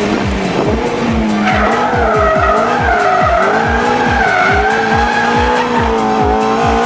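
Ferrari F430 drifting: tyres squealing and the V8 engine running, with a pitch that wavers up and down throughout. Underneath, music with a steady thumping beat.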